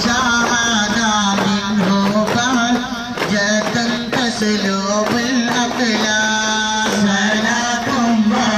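Music with singing: a wavering, ornamented vocal melody over a steady low drone, with a regular drum beat.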